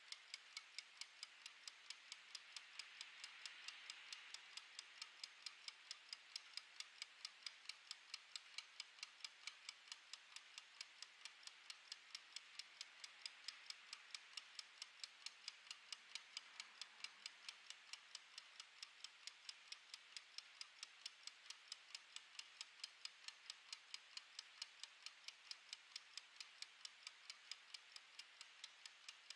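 Mechanical wind-up kitchen timer ticking steadily as it counts down: faint, even clockwork ticks, several a second, over a light hiss.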